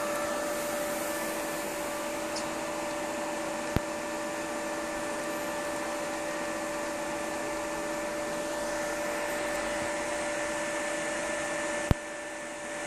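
Steady whooshing hum of cooling fans on an open-bench rig, with a few steady tones running through it. Two sharp clicks, about four and twelve seconds in.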